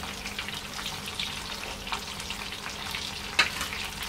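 Oil crackling and sizzling around bread-crumbed samosas deep-frying, with a single sharp click about three and a half seconds in. The samosas are fully fried and being lifted out on a metal skimmer.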